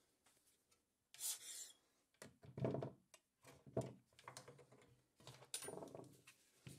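Scraping and rubbing of hard objects on a fossil-preparation workbench: about five short, irregular scrapes, the loudest about two and a half and four seconds in.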